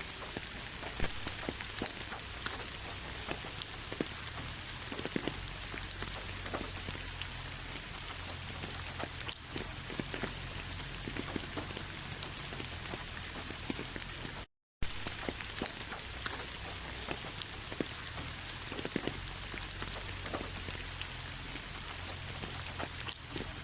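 Steady rain falling, with many separate drops ticking on a surface over a low, even rumble. The sound cuts out completely for a moment about two-thirds of the way through.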